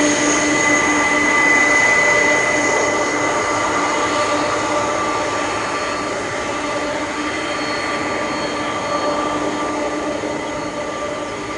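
Boeing 747-400 freighter's four turbofan engines at takeoff thrust: a loud, steady rush of jet noise with several high, steady whining tones, slowly fading.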